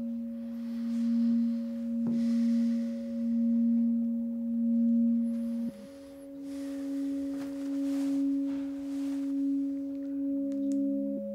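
Film score of sustained pure tones: a high held note over a lower held note that steps up in pitch about six seconds in and drops back near the end, swelling and easing in loudness.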